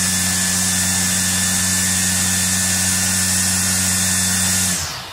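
Greenworks 40V top-mount battery string trimmer running at its faster turbo speed, the electric motor and spinning nylon line head giving a steady high whine over a rush of air. Near the end the motor cuts off and the sound dies away as the head spins down.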